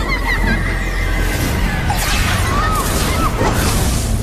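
Film soundtrack of a fight scene: dramatic music with crashing, smashing impacts, and a long mocking laugh at the start.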